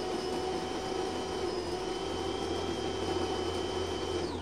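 DeLonghi Magnifica super-automatic espresso machine's built-in grinder grinding fresh coffee beans at the start of a brew: a steady whir over a low hum that winds down and stops near the end.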